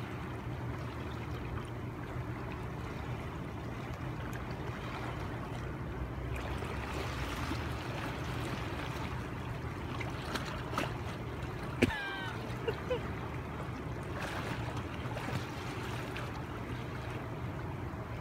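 Steady rushing of a shallow river flowing over rocks. About twelve seconds in there is a sharp knock, then a brief wavering high-pitched sound.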